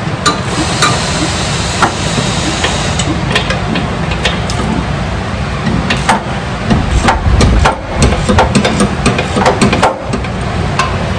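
Irregular sharp clicks and metal knocks from tools working a bolt on the Saturn Vue's engine and transmission mount from below, thickest in the second half. A steady low shop rumble runs underneath.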